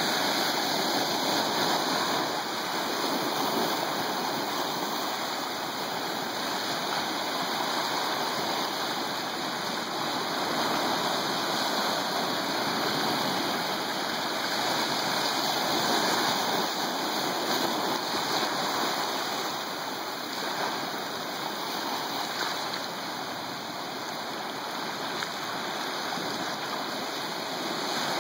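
Ocean waves washing steadily, a continuous rushing noise that swells and eases slowly in loudness.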